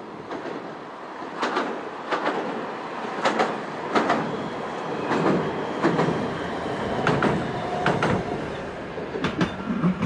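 Echizen Railway Ki-bo low-floor tram running past, its wheels clicking over rail joints, often in close pairs, over a steady rolling rumble.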